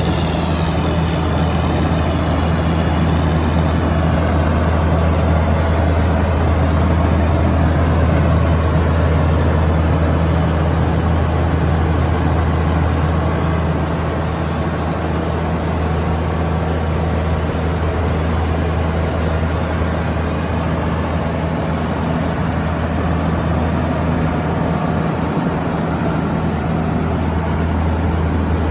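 Case IH 2188 Axial-Flow combine's diesel engine running steadily with a deep, even hum.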